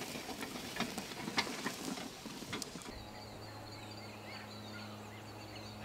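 Irregular clicks and knocks for the first half; then, from about halfway, small birds chirping over a steady low hum.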